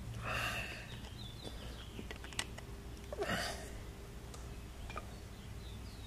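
Quiet handling of a 30 amp RV plug while a screwdriver works the screws of its plastic housing: a few small clicks, with two short breathy sniffs, one just after the start and one a little past three seconds in.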